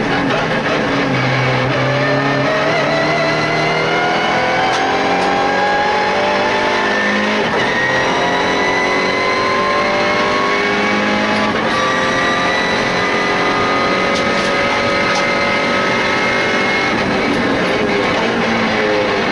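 MINI Challenge race car's engine heard from inside the cockpit, pulling at full throttle with its pitch climbing slowly. There is a quick gear change about twelve seconds in, more climbing, and the pitch falls near the end.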